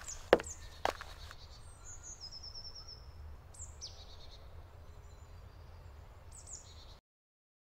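Forest ambience with songbirds chirping and calling over a low steady background, with a few sharp knocks in the first second. The sound cuts off to complete silence near the end.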